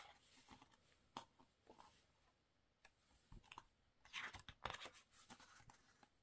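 Glossy pages of a photobook being handled and turned by hand: soft paper rustles and small clicks, with a louder run of rustling about two-thirds of the way through.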